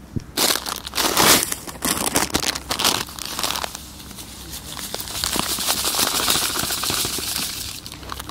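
Plastic groundbait packaging crinkling and rustling while feeder groundbait is mixed by hand. Irregular crackles come first, giving way to a steadier rustling hiss about halfway through.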